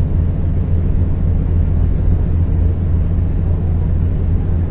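Steady low engine drone of a large river passenger ship under way, heard from inside on its hammock deck.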